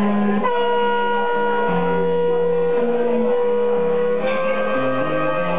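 Slide guitar playing blues: one long held high note, stepping slightly up about four seconds in, over lower notes that change underneath.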